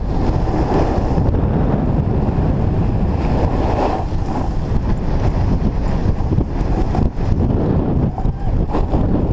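Wind rushing over the microphone of a camera carried by a moving snowboarder, mixed with the hiss and scrape of the snowboard sliding over groomed and chopped snow. The noise is steady and loud, with no break.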